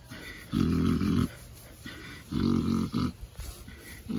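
Pet pig snoring as it dozes off under scratching: a low, rasping grunt-snore with each breath, evenly about every two seconds. Two full snores, with a third starting at the very end.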